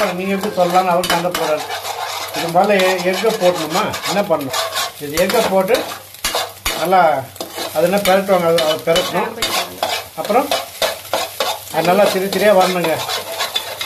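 A steel spoon stirring and scraping scrambled egg around a pan over the flame, with a steady frying sizzle and quick clicks of the spoon against the pan.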